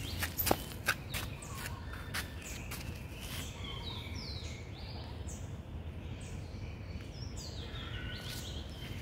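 Small birds chirping over and over, each chirp short and falling in pitch, over a steady low background rumble. A few sharp clicks come in the first second.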